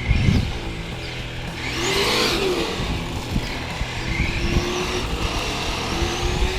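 Traxxas Slash 4x4 RC truck driving on a 3S battery: its whine and onboard engine-sound system rise and fall in pitch as the throttle is worked, with a low thud right at the start.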